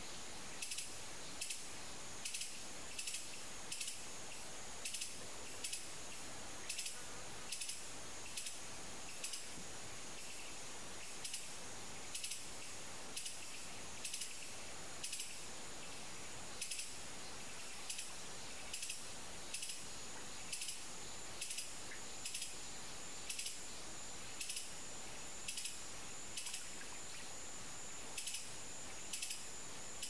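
Insects chirping outdoors: short, high-pitched chirps repeat about once a second, often in pairs, over a steady high-pitched hum.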